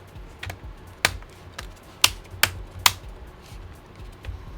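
A series of sharp plastic clicks and taps as laptop parts are handled and pressed into place. The three loudest come close together, about two, two and a half and three seconds in.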